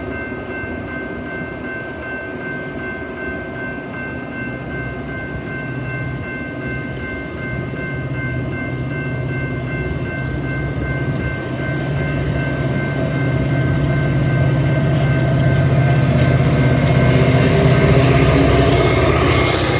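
Metra commuter train hauled by an EMD F40PH diesel locomotive, the engine's steady drone and whine growing louder as it approaches, with rail clicks and rising wheel noise near the end.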